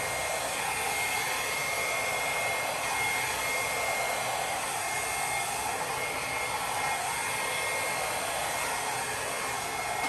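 Handheld hair dryer running steadily, a full even hiss with a thin high whine in it, blowing wet acrylic paint out across a canvas in a Dutch pour blowout.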